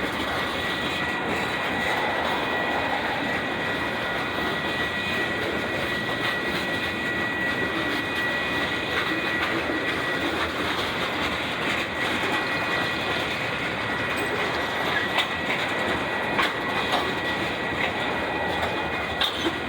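Long heavy freight train rolling past: a steady rumble and rattle of freight cars on the rails, with a few sharp clicks of wheels over rail joints near the end.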